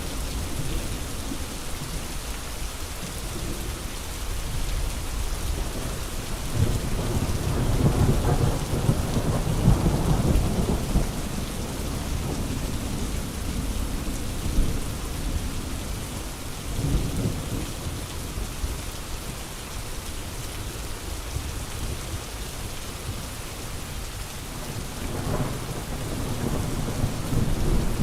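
Steady rain falling, with low rolling thunder that swells up several times, loudest about a third of the way in and building again near the end.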